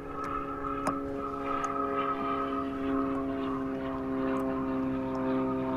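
Steady drone of a distant engine holding an even pitch, with a few faint sharp ticks, the clearest about a second in.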